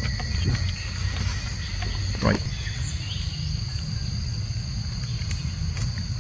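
Forest insects keeping up a steady high-pitched drone over a constant low rumble, with one brief sound about two seconds in.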